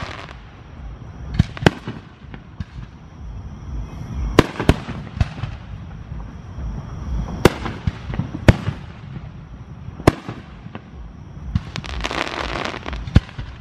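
Aerial fireworks shells bursting: a string of sharp bangs, irregular and a second or more apart, over a low rumble, with a stretch of dense crackling near the end.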